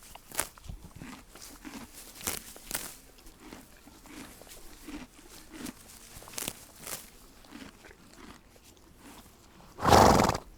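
A horse chewing its feed, with irregular crisp crunches, then a loud snort near the end.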